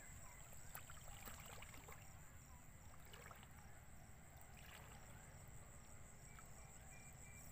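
Faint sloshing and small splashes of shallow water as a person wades and reaches into it, with a few soft ticks.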